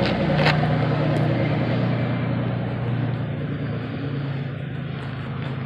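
A motor vehicle's engine going by, a steady low hum that slowly fades. Two light clicks sound in the first second or so.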